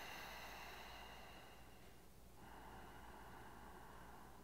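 Faint, slow breathing through the nose: one long breath, then a second starting about two seconds in.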